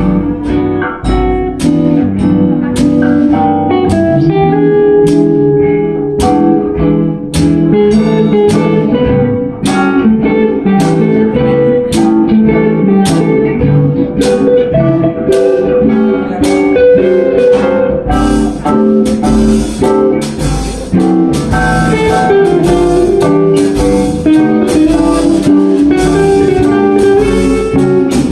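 Jazz guitar trio with drums: electric guitars picking melody lines and chords over a steady beat on the drum kit. The cymbals become busier and brighter about two thirds of the way through.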